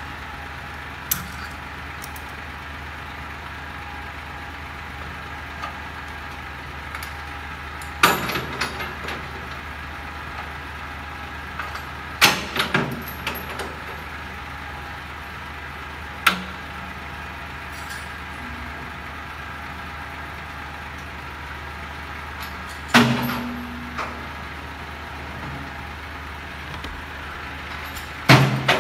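A skip-bin truck's diesel engine idling steadily, with about five loud clanks and bangs several seconds apart from the back of the truck, some with a short rattle after them.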